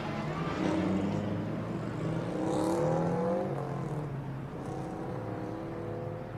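Cars passing on a road, their engine notes rising and falling as each goes by, over a steady low hum.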